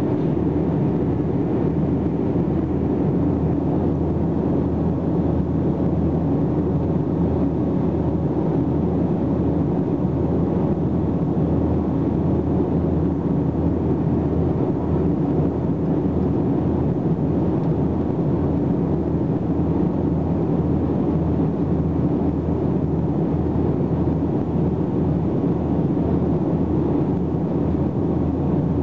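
Steady cabin noise of an Airbus A321 climbing after takeoff: the drone of its jet engines and the rush of air, heard from inside the cabin. It is low and even, without change.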